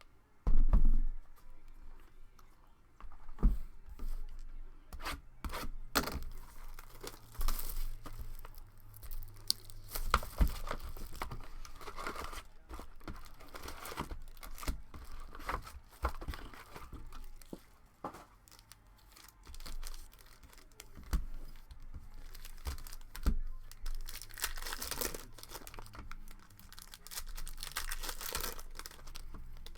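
Trading-card pack wrappers being torn open and crinkled, with cards handled in between: an irregular run of tearing, crinkling and sharp snapping rustles.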